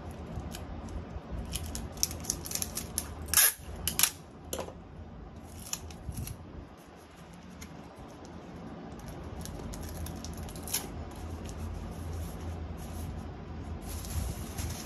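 Hands handling and opening a small white cardboard box: dry clicks and crackles of card and paper, thickest and loudest about two to six seconds in, with scattered clicks later and a brief rustle of packaging near the end. A steady low hum runs underneath.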